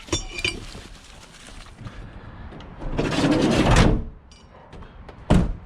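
A few metallic clinks, then a scraping, sliding rush lasting about a second, then one sharp heavy bang near the end.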